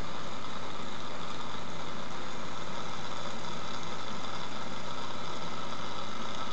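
A steady low machine hum with a constant hiss over it, unchanging throughout.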